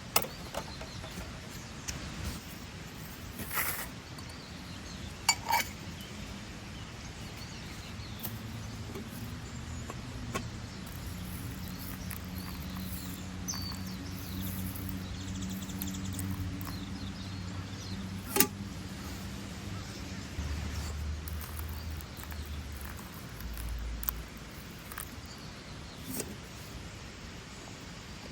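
Quiet outdoor ambience with a few sharp clicks and knocks. A low, steady hum comes in about eight seconds in and fades out near the end.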